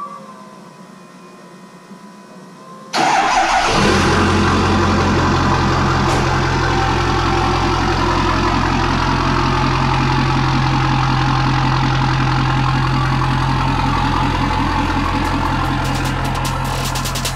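6.7 L Powerstroke turbo-diesel V8 in a 1980s Ford F-250, heard from the exhaust tip: after a few seconds of quiet room sound it starts suddenly about three seconds in and settles into a steady, loud idle.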